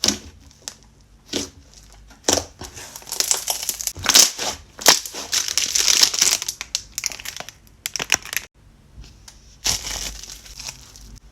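Irregular crinkling and crunching from hands squeezing and working crinkly material, in bursts, thickest in the middle and with another burst near the end.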